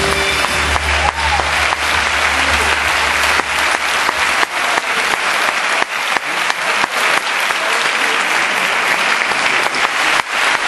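A large theatre audience applauding, many hands clapping densely and steadily, with music underneath that fades out about four seconds in.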